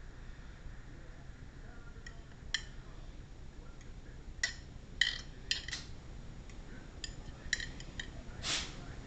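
Light clinks and taps of utensils against dishes, a handful of short ringing clicks, with a brief scrape near the end.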